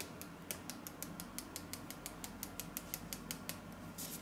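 Small spice jar of cinnamon being worked over the pizza to sprinkle it: a fast, even run of light clicks, about six a second, that stops about three and a half seconds in.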